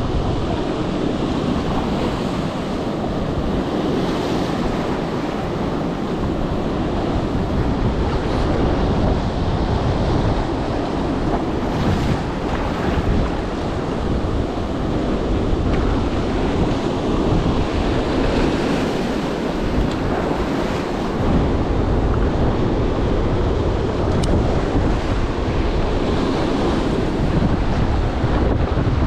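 Rough-sea surf washing and breaking steadily over a rocky reef, with wind buffeting the microphone.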